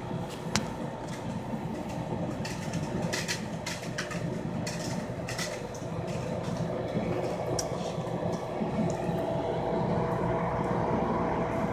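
Aquarium equipment running: a steady hum with bubbling water from an air line, and scattered small clicks.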